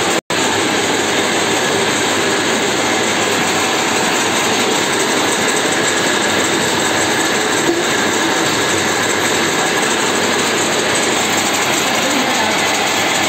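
Woodworking machinery in a plank workshop running steadily: a loud, even mechanical noise that does not change.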